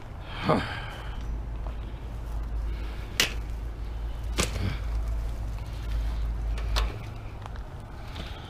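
Scrap bicycles and metal lawn furniture being picked up and handled: about four sharp clanks and knocks, over a low steady rumble that stops about seven seconds in.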